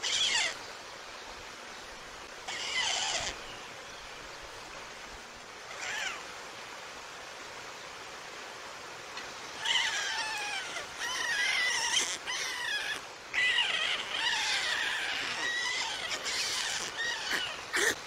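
White stork chicks calling in high, squeaky, short falling cries: a few single cries in the first six seconds, then a near-continuous chorus of overlapping calls from about halfway in. A steady faint outdoor hiss lies underneath.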